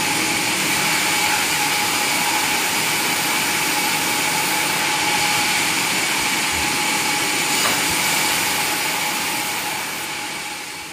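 Sawmill machinery running steadily, a loud even noise with a constant high whine, fading out at the end.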